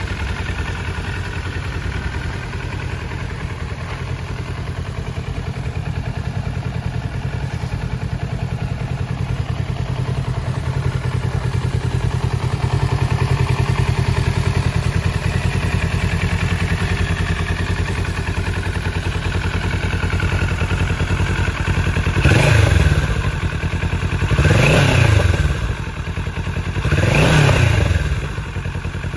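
Kawasaki Z650's 649 cc parallel-twin engine idling steadily, then revved three times near the end with short throttle blips about two and a half seconds apart, each rising and falling back to idle.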